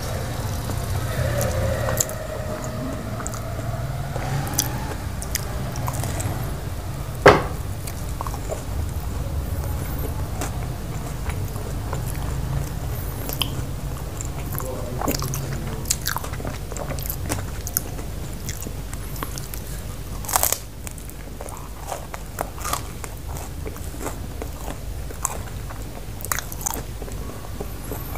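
Close-up chewing and crunching of chicken pizza, with many short crisp crackles as the crust is bitten and chewed; the sharpest crunches come about seven seconds in and again about twenty seconds in.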